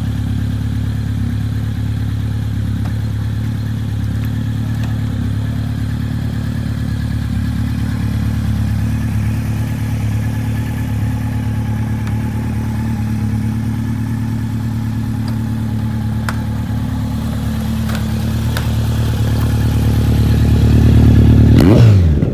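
Honda CB1100's air-cooled inline-four idling steadily through an aftermarket Yoshimura R77 full-carbon slip-on exhaust. Near the end the engine speed creeps up and it is blipped once, rising and falling quickly.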